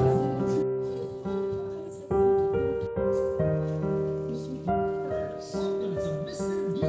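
Soft background piano music, single held notes changing about every half second.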